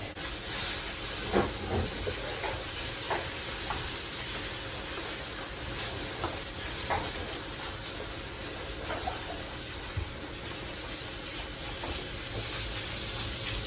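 Steady hiss, with a few faint soft taps as a ball of bread dough is rolled by hand on a granite countertop.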